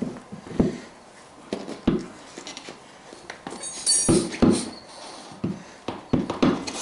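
Irregular thumps and knocks from a motorcycle wheel and tire being handled and worked on by hand during a tire change, with a short ringing metal clink a little before four seconds in.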